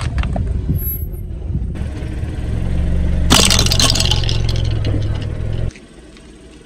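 Car engine running low with tyre rumble as the tyre rolls over a flattened cardboard box, and a loud crackling crunch about three seconds in as something under the tyre is crushed. The rumble cuts off suddenly near the end, leaving a much quieter background.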